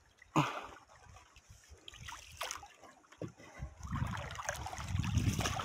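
Water lapping and splashing around a wooden canoe moving through the water, with a sharp knock about half a second in and a louder low rumble setting in past halfway.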